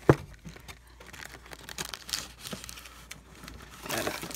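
Foil trading-card packs rustling and crinkling as they are handled and taken out of a cardboard box, with a sharp knock right at the start. The crinkling grows denser near the end.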